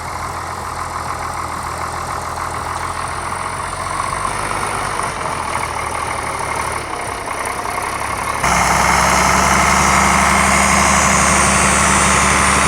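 Heavy truck engine running steadily. About two-thirds of the way through, the sound cuts suddenly to a louder engine with a steady low hum.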